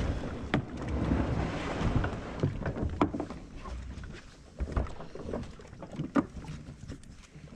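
Scattered knocks and clicks of gear being handled on a fishing kayak tied at a floating dock, over a low rumble that fades after the first few seconds. The sharpest knocks come about three and six seconds in.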